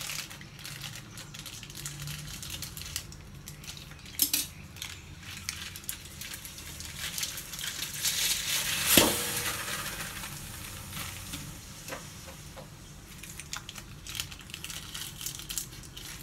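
Plastic bag crinkling and rustling as a slab of marinated tocino is squeezed out of it into an aluminium wok, with scattered clicks and one sharp, loud sound about nine seconds in.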